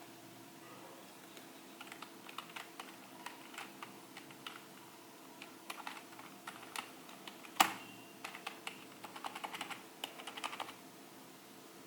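Typing on a Corsair K55 RGB membrane gaming keyboard: scattered key presses, one much louder clack past the middle, then a quick flurry of keystrokes near the end.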